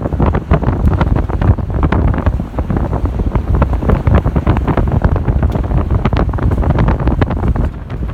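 Heavy wind buffeting the microphone from a moving vehicle, over a continuous low road rumble with many quick knocks and rattles as the vehicle jolts along a rough dirt road.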